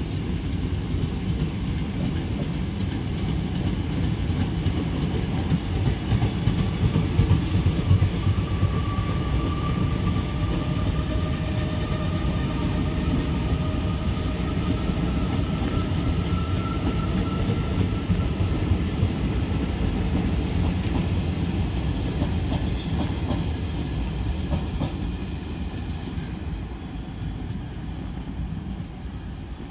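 Passenger train's ICF coaches rolling past, wheels clattering over the rail joints with a heavy rumble and a faint drawn-out squeal in the middle. The sound fades over the last few seconds as the rear of the train pulls away.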